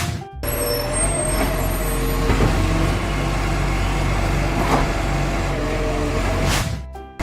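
Heavy vehicle engine running steadily with a low hum. It cuts out briefly just after the start and again just before the end.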